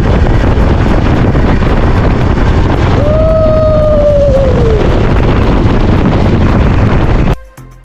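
Loud wind buffeting the microphone of a motorcycle rider on the move. Midway a vehicle horn sounds once for nearly two seconds, its pitch sliding down at the end. Near the end the wind noise cuts off suddenly and music begins.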